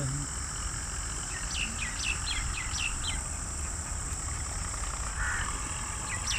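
Outdoor rural ambience: a bird calls a quick run of about six short, falling whistled notes, starting about a second and a half in. Insects chirr steadily in the background.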